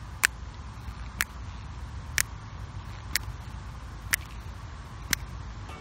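Finger snaps keeping a slow, steady beat, six sharp snaps about a second apart, over a low rumble.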